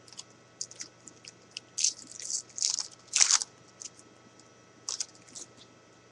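Foil wrapper of a 2013 Bowman football card pack being torn open and crinkled by hand: a string of short, irregular crackling rustles, the loudest about three seconds in.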